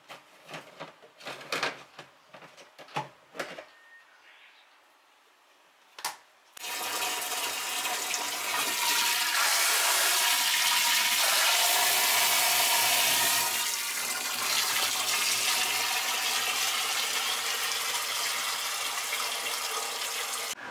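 A few knocks and clicks of hose fittings being handled, then about six and a half seconds in, water starts gushing from a hose into a 50-litre plastic water tank, pumped by a submersible pump in the tank. The rush runs steadily and eases a little about halfway through.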